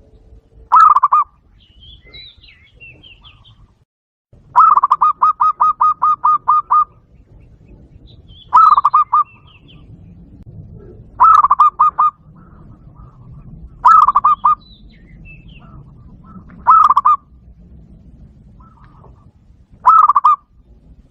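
Zebra dove call, likely played back through a Bluetooth speaker as a lure: short bursts of rapid staccato cooing notes repeated every few seconds, with one longer run of about ten notes near the start. Faint higher chirps of other birds sound between the bursts.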